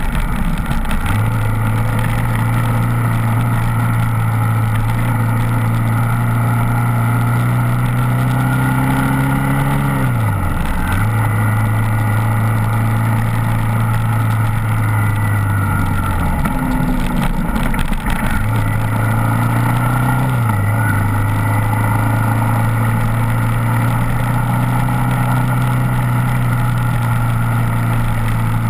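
Suzuki DR650SE's single-cylinder four-stroke engine running under way on a gravel road, its pitch climbing slowly and then falling off sharply three times as the throttle is eased and picked up again. A steady rush of wind and tyre noise runs underneath.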